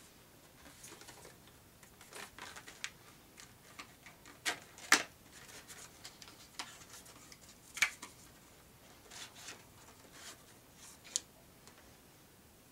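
Scattered clicks and rustles of small items and packaging being handled by hand, with a few sharper clicks, the loudest about five seconds in and another near eight seconds.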